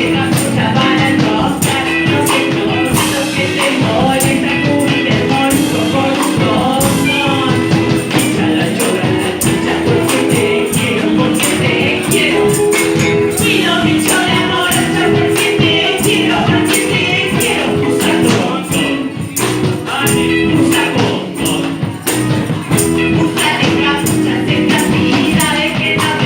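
A band playing an upbeat song with a steady tambourine beat and a voice singing over it. The music eases off briefly about two-thirds of the way through.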